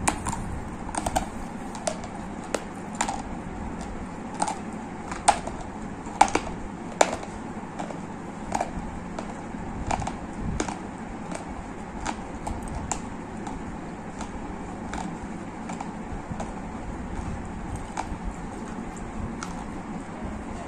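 Dry gray clay crunching in short, sharp, irregular clicks, about one or two a second, over a steady low background noise.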